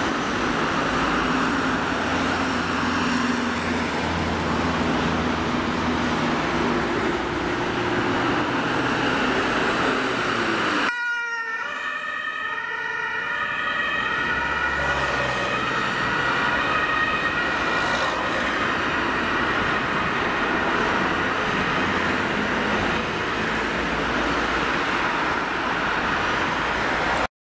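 Road traffic and passing emergency-vehicle engines on a city street. About eleven seconds in this breaks off abruptly, and an ambulance's siren takes over, sounding steadily as it drives along the street.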